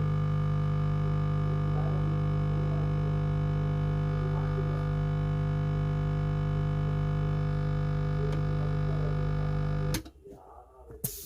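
Small electric air compressor running with a steady, unchanging hum, then switched off abruptly near the end.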